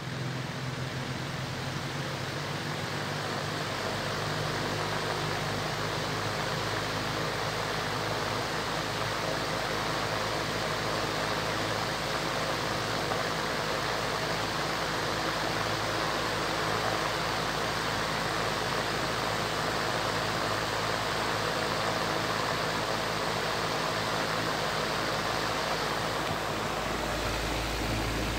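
Wall-mounted shutter exhaust fan running steadily: an even rush of air through the blades with a low motor hum, growing a little louder in the first few seconds. A low rumble comes in near the end.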